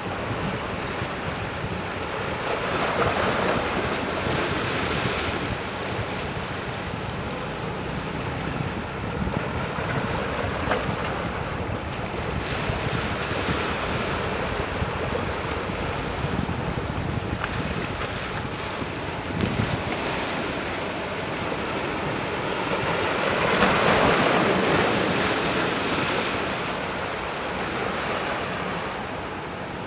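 Water washing and wind buffeting the microphone, with a faint low steady engine hum underneath; the noise swells louder twice.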